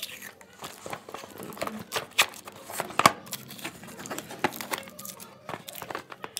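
A cardboard smart-watch box being handled: irregular clicks, scrapes and crinkles of card and packaging as it is slid and turned over. The sharpest click is about halfway through.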